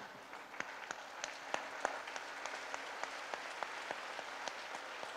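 A seated audience on its feet applauding steadily, with many individual hand claps standing out.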